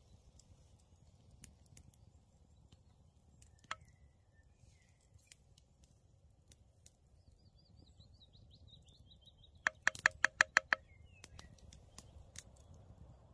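Quiet woodland ambience with faint songbird chirps and a short warbling trill. Near the end comes a quick run of about eight sharp clicks, roughly eight a second.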